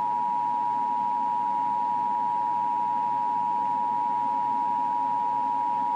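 Emergency Alert System attention signal: two steady high tones sounding together as one unbroken drone, the alarm that announces an emergency alert message about to be read.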